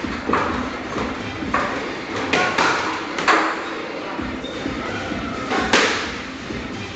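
Boxing gloves landing punches during sparring: a few irregular sharp slaps and thuds, the loudest about three seconds in and again near six seconds.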